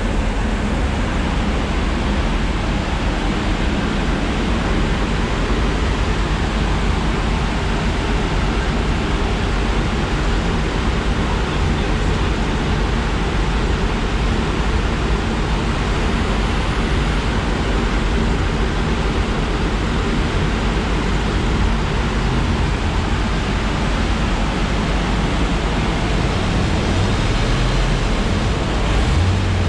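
Steady, loud rush of air from the dyno cell's large cooling fan, with a low, even hum underneath and no revving.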